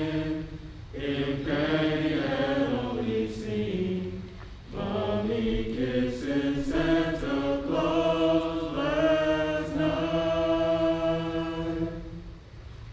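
Male vocal group singing a cappella in harmony, holding long chords, with short breaks between phrases about a second in and again near the middle.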